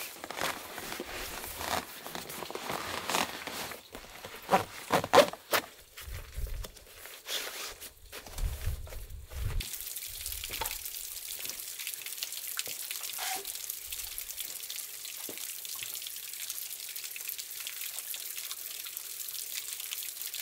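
Camping gear being packed up by hand: a run of rustles, clicks and knocks with a few low thumps. About halfway through it gives way to a steady hiss with faint ticking.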